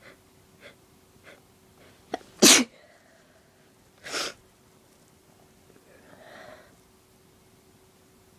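A woman's allergy sneeze: a few short catching breaths, then one loud sneeze about two and a half seconds in, followed by a second, shorter burst a couple of seconds later and a soft breath out.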